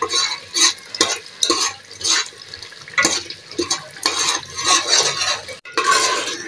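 Metal ladle stirring and scraping a spice masala frying in oil in an aluminium pot, in irregular strokes about every half second to a second over the frying.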